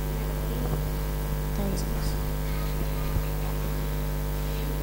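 Steady electrical mains hum and buzz from the stage microphone and PA system, with a faint knock about three seconds in.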